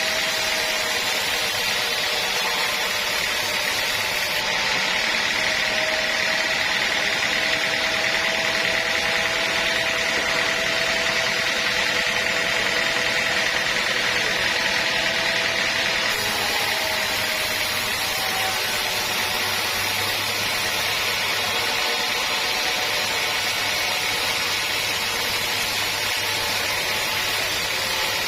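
Sawmill saw running steadily, a constant high whine over a hiss of noise, with a low hum joining about halfway through.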